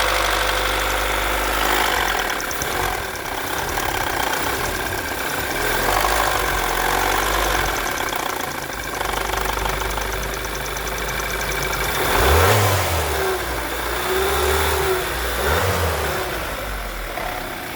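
Volkswagen Jetta 2.0 TSI turbocharged four-cylinder engine running with an abnormal engine noise, revved up briefly twice near the end. The mechanic traces the noise to a faulty sensor, not to internal engine damage.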